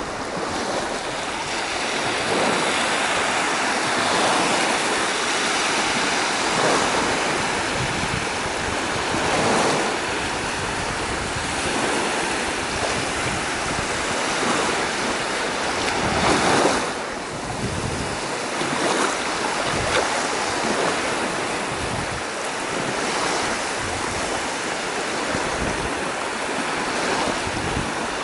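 Mediterranean Sea waves washing onto the shore, a steady rush of surf that swells and falls back every few seconds, with wind buffeting the microphone.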